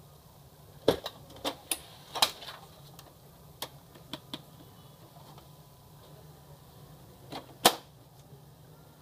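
Plastic clicks and clacks as the top cover of an HP LaserJet CP1025 colour laser printer is raised and its toner cartridge drawer is handled. Near the end comes a loud snap as the cover is shut, over a low steady hum.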